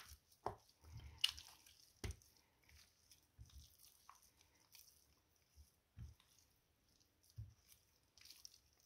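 Faint wet squelching of hands rubbing oil and spice marinade into raw chicken fillets, with a few soft knocks scattered through it.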